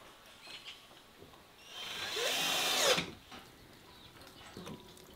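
Cordless drill running in one burst of just over a second, its pitch wavering, then stopping abruptly.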